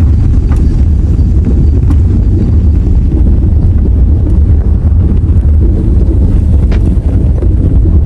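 Cabin noise of a car driving on an unsealed dirt road: a loud, steady low rumble of tyres and engine, with a few faint knocks and rattles.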